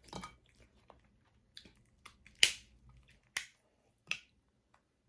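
Seafood-boil shellfish shells being cracked and broken apart. There are three sharp cracks about a second apart, the loudest about two and a half seconds in, with fainter clicks just before them.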